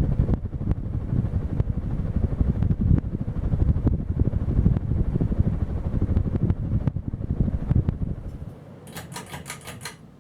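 Regency Marquis-MX 52-inch ceiling fan running, its airflow buffeting the microphone with a gusty low rumble. Near the end the rumble drops away and a quick run of about seven sharp clicks follows.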